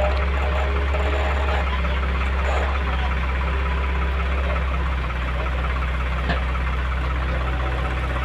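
Heavy diesel engine running steadily with a deep, even hum.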